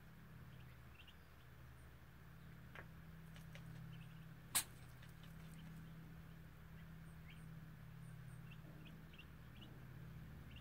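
Faint peeping of newly hatched Muscovy ducklings, short rising chirps every second or two, over a steady low hum. A single sharp click about four and a half seconds in is the loudest sound.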